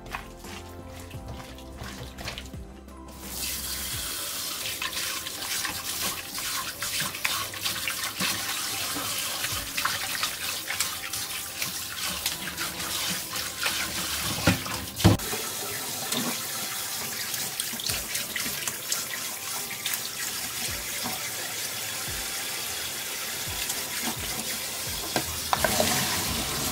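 Kitchen tap running hard into a stainless steel sink and a glass bowl as floury octopus is rinsed by hand, with one sharp knock about halfway through and a louder pour of water through a colander near the end. Background music plays, heard alone for the first few seconds before the tap comes on.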